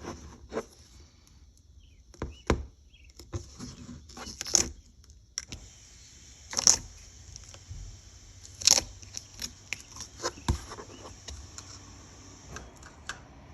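Ice slime being pressed and poked by hand, giving irregular sharp crackles and pops as its crunchy surface breaks, with several louder pops among the small ones. A faint steady hiss runs underneath.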